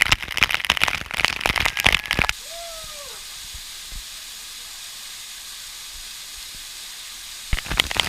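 Waterfall water splashing close on the microphone, a dense crackling spatter, which cuts off about two seconds in to a steady softer rush of falling water. A brief whistle rises and falls just after the cut, and the spattering returns near the end.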